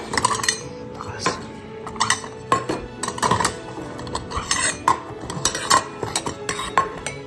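Metal cat food bowls clinking and knocking on a table as several cats eat wet food from them: a dozen or so irregular metallic clinks, some ringing briefly.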